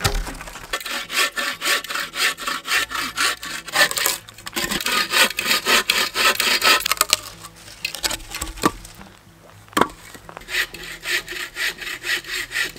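Hand saw cutting a dry log for firewood in quick, even back-and-forth strokes. The sawing pauses for a moment near the middle, with a couple of sharp knocks, then starts again.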